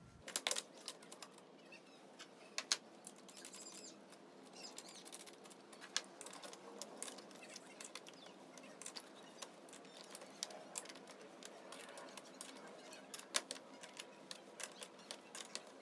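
Faint handling noise: scattered light clicks and rustling as the metal parts of a track saw parallel guide are adjusted and moved along the track saw rail, with a few sharper clicks standing out.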